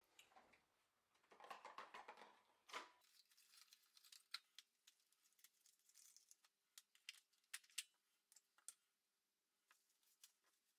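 Faint rustling for the first few seconds, then scattered light clicks and ticks of hands handling small packaged medical supplies on a desk.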